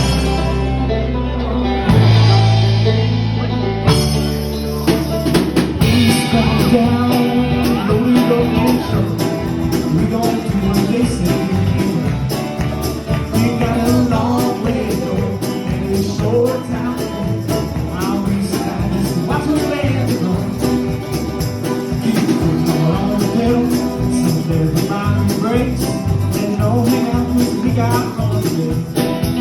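Live band playing an upbeat country tune with no words, the instruments playing continuously.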